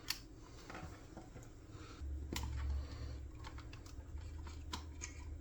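Faint scattered clicks and taps of small plastic parts being handled inside the opened Nerf Ultra Speed blaster, with a low hum starting about two seconds in.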